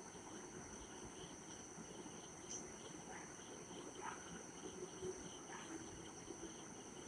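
A metal spatula stirs and scrapes thick masala paste frying in oil in an aluminium kadai, as the paste is fried until the oil separates. It gives a few faint scrapes about a second apart, over a steady high-pitched whine.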